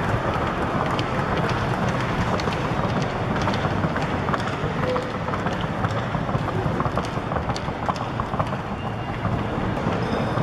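Steady noisy din of a crowded arena, with wind noise on the microphone and scattered light clicks.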